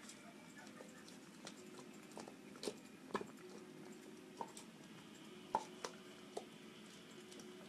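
A Carolina Dog gnawing a bone held between its front paws: irregular sharp cracks and crunches of teeth on bone, about six of them, over a low steady hum.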